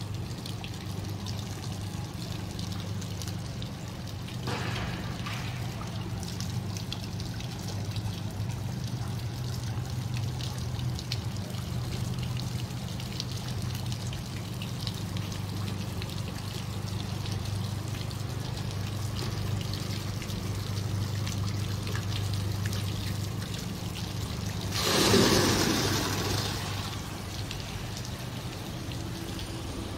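Water trickling and pouring into the steel buckets of Richard Huws's kinetic bucket fountain as they fill from the pipes. About 25 seconds in, a louder rush of water lasting a second or two, as a full bucket tips and dumps its load.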